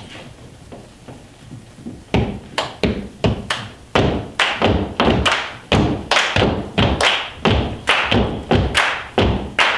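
A group clapping and stomping a steady body-percussion rhythm on a stage floor, starting about two seconds in, at about three beats a second.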